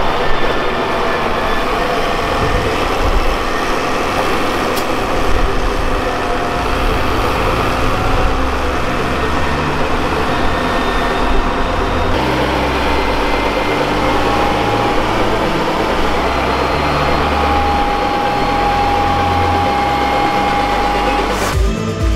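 Farm tractor engine running steadily under load with field machinery working, a continuous rumble that shifts in pitch now and then; a thin steady whine joins in during the second half.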